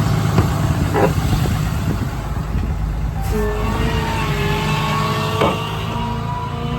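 Cummins 6.7 L diesel truck engine running steadily. About halfway through, a whining tone comes in and slowly rises in pitch, with a couple of light knocks.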